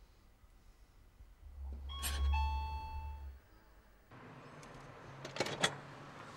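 Two-note ding-dong doorbell chime, a higher note then a lower one ringing for about a second, over a low rumble. A few sharp clicks follow near the end as the front door is unlatched.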